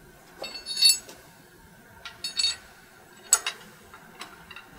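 Light metallic clinks and short ringing taps, about half a dozen spread over a few seconds, as a metal belt tensioner bracket is handled and fitted against an LS V8 engine's cylinder head.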